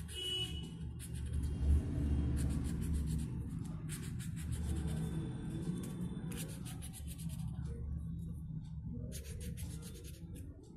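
Colouring on paper by hand: rapid back-and-forth scribbling strokes of a colouring tool, coming in several bursts with short pauses between them.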